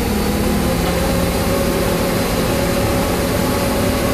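Heavy diesel engine of a crane running steadily while it holds a suspended generator: an even low drone with a steady hum above it.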